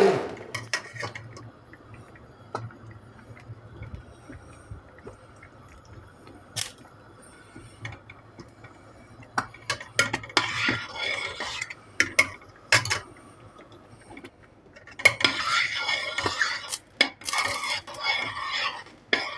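Kitchen utensils and dishes clinking and clattering while homemade apricot jam is handled. Single sharp clinks come now and then, with busier clattering about ten seconds in and again near the end.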